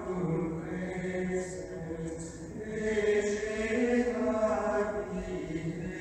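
Sung chant of voices holding long notes that slowly shift in pitch, in the manner of a choir.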